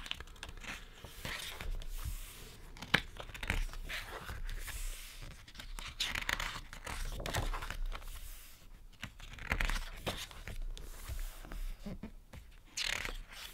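Pages of a thick photobook being turned and smoothed by hand: paper rustling and sliding in several bouts, with a sharp tap about three seconds in.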